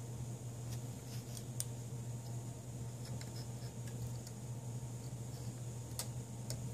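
Steady low hum from a powered-on home-built 3D printer, with a scattered handful of light clicks and ticks; the sharpest click comes about six seconds in.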